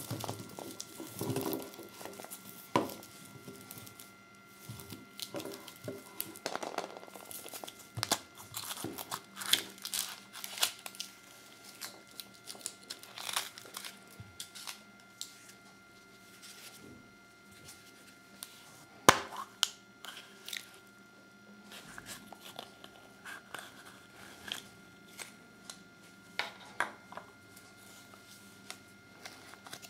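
Foil wrappers of Kinder Surprise chocolate eggs crinkling and tearing as they are unwrapped, with the chocolate shell cracking and the plastic toy capsule and paper leaflet being handled: irregular small crackles and rustles, with one sharp, loud snap about two-thirds of the way through.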